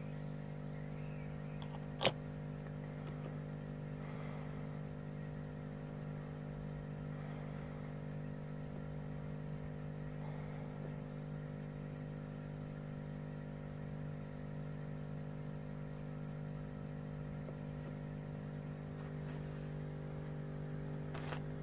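A steady machine hum at an unchanging pitch, with a sharp click about two seconds in and another near the end.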